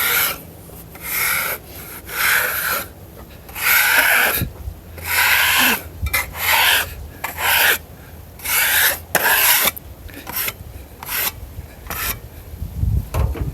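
Repeated scraping strokes across the face of a freshly bandsawn red oak slab: about a dozen rasping passes, each under a second, at an uneven pace. The scraping clears the sawn surface to bring out the grain figure.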